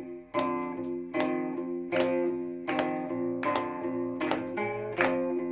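Guitar strumming chords in a steady rhythm, about two sharp strums a second.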